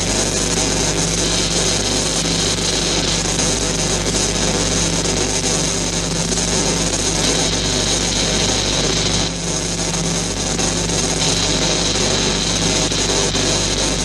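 Cutting torch slicing through a metal hatch: a steady, loud hiss and crackle of spraying sparks with a low hum underneath.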